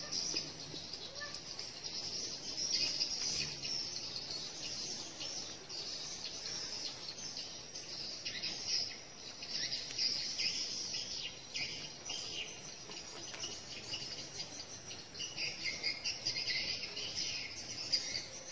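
Dense, high-pitched chorus of insects chirping, continuous with small swells in level.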